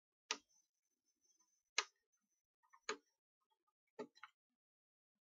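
Side cutters snipping through capacitor leads on a circuit board: four sharp clicks, a second or more apart.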